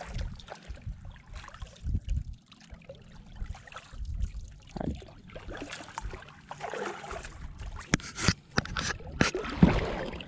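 Double-bladed kayak paddle stroking through calm water: blades dipping, splashing and dripping, with low gusts of wind on the microphone early on. Near the end come a few sharp knocks against the hull.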